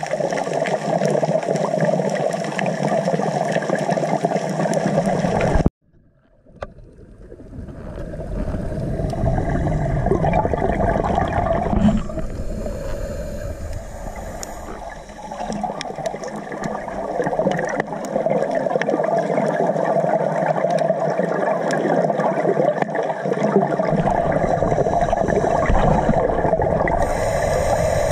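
Muffled underwater rushing and bubbling picked up by a camera in its waterproof housing on a scuba dive, with many small crackling clicks. The sound cuts out abruptly about six seconds in and swells back over the next two seconds.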